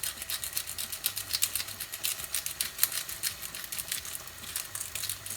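Pepper being dispensed from a pepper pot over a cooking pan: a rapid, irregular run of sharp little clicks.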